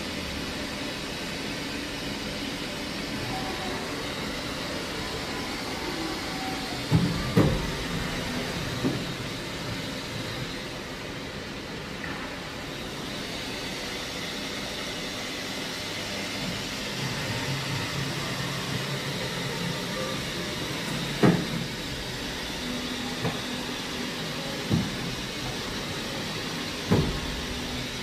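Doosan Mynx 5400/50 vertical machining center running with a steady mechanical hum as its table and head traverse the axes, with a faint tone that comes and goes. A few sharp knocks break through, three of them close together about seven to nine seconds in and more in the last third.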